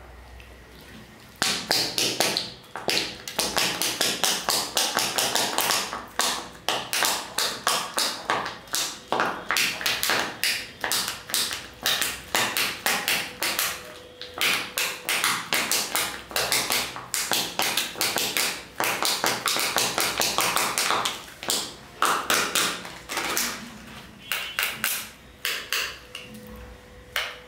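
Fingers peeling and crinkling the foil wrapper of a Kinder Joy–style plastic chocolate egg: a fast, irregular run of sharp crackles and taps that starts about a second and a half in and stops shortly before the end.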